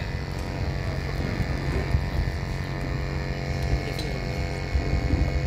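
Steady low hum under a fluctuating, buffeting low rumble, with faint distant voices.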